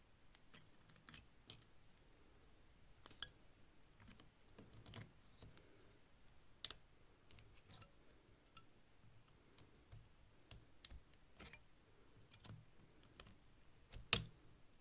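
Sharp, irregular clicks and small snaps from a homemade battery spot welder firing its copper probes through a thin metal strip onto a scissor blade, the loudest snap about a second before the end.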